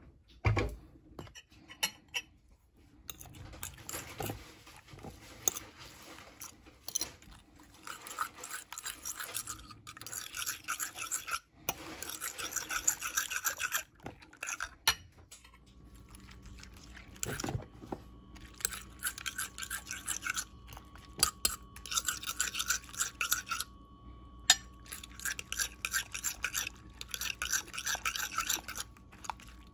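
A fork beating raw eggs with chopped onion in a glass bowl: fast, rhythmic scraping and clinking of the tines against the glass, in several bouts with short pauses. A faint steady hum comes in about halfway through.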